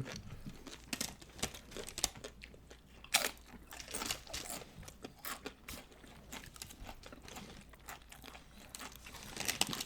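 Tortilla chips of loaded nachos crunching as they are bitten and chewed, in irregular crisp crunches, the loudest about three seconds in.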